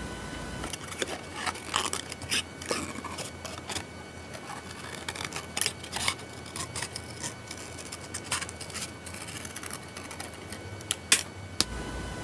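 Metal scissors snipping through thin paper in short, irregular cuts while cutting out small ovals, with a sharper click near the end.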